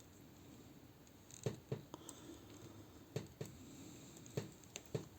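Light clicks and taps of small hard plastic action-figure parts being handled and fitted, about half a dozen separate clicks scattered through.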